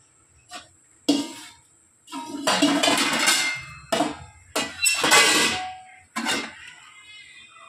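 An aluminium cooking pot of pasta in water being handled, giving a series of sudden knocks and longer scraping noises, the longest lasting about a second and a half.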